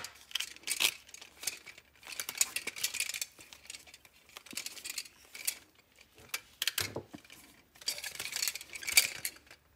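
Plastic parts of a Soundcore Life Q20 headband handled and prised at by hand while its cushion clips are worked loose: a scattered run of small clicks, scrapes and rustles.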